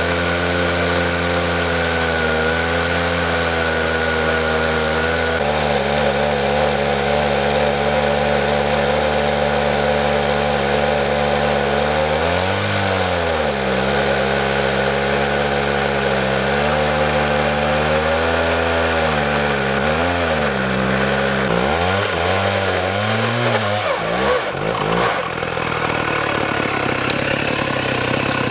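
Two-stroke chainsaw running at high revs in a chainsaw mill, ripping a log lengthwise into planks. Its pitch sags briefly a few times under the load of the cut, and near the end the steady note breaks up.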